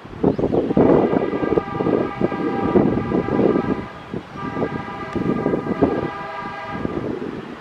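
Wind buffeting the microphone, with a steady high whine of several pitched tones from about a second in until near the end: the Rolls-Royce Trent XWB engines of an Airbus A350-900 on its landing roll-out.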